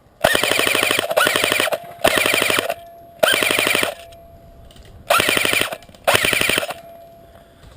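Airsoft gun firing five bursts on full auto, each a fast, even rattle of shots; the first burst is the longest.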